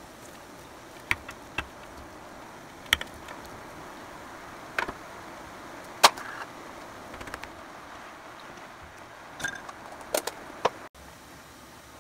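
A pot of soybean-paste stew boiling on the cooktop: a steady hiss with sharp ticks every second or two. The sound breaks off abruptly near the end.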